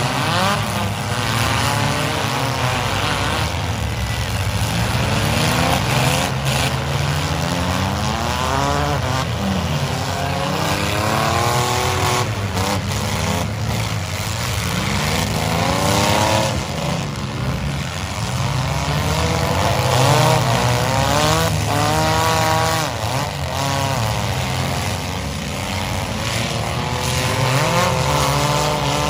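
Several compact demolition derby cars' engines revving hard, their pitch repeatedly rising and falling as the cars accelerate, back up and ram one another, with a few sudden bangs of the cars colliding.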